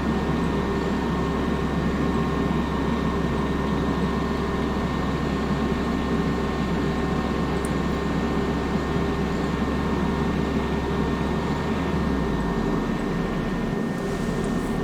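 Tractor engine running steadily while lifting a load on pallet forks, its low note dropping about three quarters of the way through.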